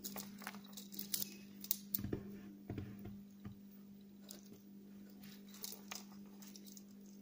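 Faint handling sounds of fingers working thin monofilament fishing line through a loop: light scattered clicks and rustles, more of them in the first few seconds, over a steady low hum.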